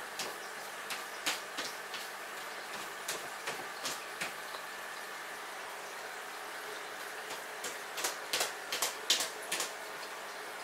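Cat scratching and digging in the litter inside a top-entry plastic litter box: irregular runs of short gritty scrapes in three clusters, the last, about eight seconds in, the loudest. A steady background hiss runs underneath.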